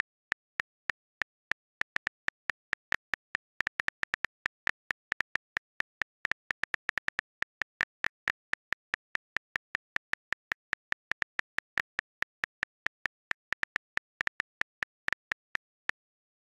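iPhone Calculator key-tap clicks: a long irregular series of short, identical ticks as buttons are pressed, sometimes several in a quick run, with silence between.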